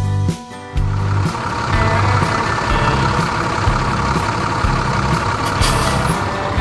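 A tractor engine sound effect starts about a second in and runs steadily over background music with a regular bass beat.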